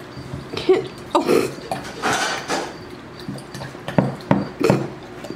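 Golden retriever lapping water from a ceramic mug, tongue and muzzle knocking against the mug in irregular wet laps and clinks.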